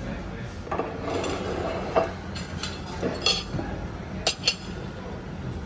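Cutlery clinking against dishes at a meal: a few sharp, ringing clinks, the loudest pair about four seconds in, over a steady low background hum.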